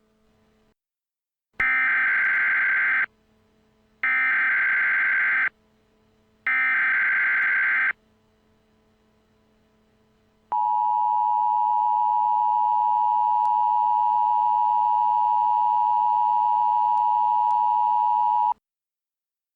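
Emergency Alert System header tones: three short bursts of warbling digital data tones, a second or so apart, then the steady two-tone attention signal held for about eight seconds before it cuts off suddenly.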